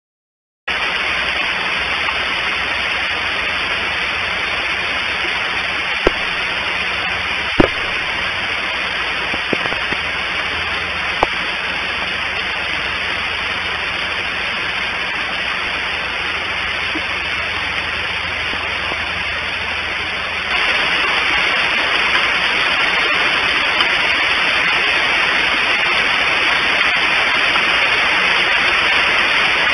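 Steady hiss on an outdoor eagle nest-cam microphone, getting louder about two-thirds of the way through, with a few sharp clicks in the first half.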